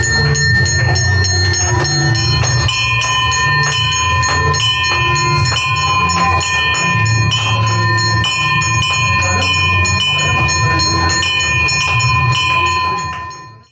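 Puja bells ringing continuously with metallic clanging at a steady, quick rhythm, as played for an aarti, over a low pulsing sound; it all fades out near the end.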